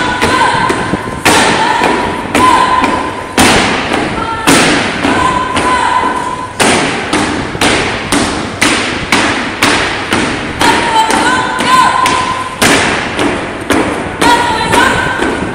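Boots of a marching escort squad stamping in unison on a gymnasium floor: a long run of heavy thumps about one to two a second, each ringing briefly in the hall.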